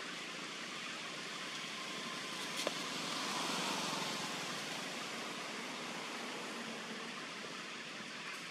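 Steady outdoor background hiss that swells a little in the middle, with one sharp click a little over two and a half seconds in.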